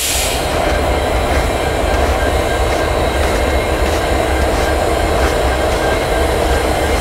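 Norfolk Southern GE Dash 9 diesel locomotives rolling slowly past at close range: a steady low diesel engine rumble with the sound of wheels running on the rails.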